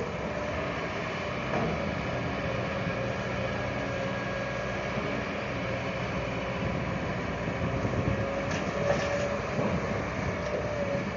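Vehicle engine running steadily, with a steady whine over it and a few faint knocks.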